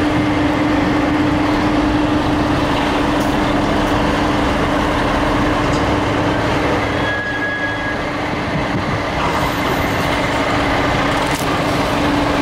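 Heavy diesel dump truck engine running close by, loud and steady, with a constant low hum through it.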